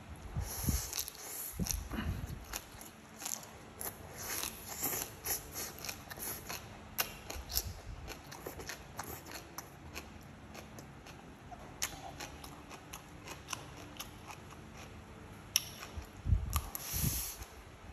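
Close-up mouth sounds of someone eating stir-fried greens and rice: slurping strands in and chewing, with irregular wet clicks and smacks throughout. The louder slurps come near the start and again near the end.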